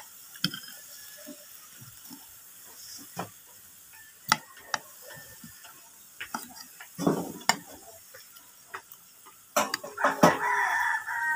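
Metal spoon and fork clinking and scraping against a plate of rice and chicken, in scattered sharp clicks. Near the end, a loud drawn-out pitched call lasting about two seconds.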